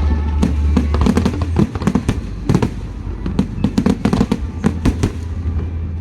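Aerial fireworks display: a rapid, irregular run of crackling pops and bangs, several a second, over a steady low rumble.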